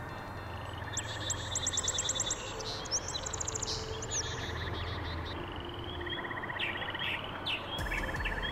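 Small songbirds singing: a fast run of high, repeated, falling notes about a second in, followed by buzzy trills and scattered chirps.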